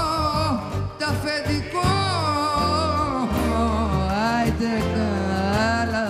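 A woman singing a Greek song live, her voice winding through long, ornamented, wavering phrases over a band with clarinet and bouzouki.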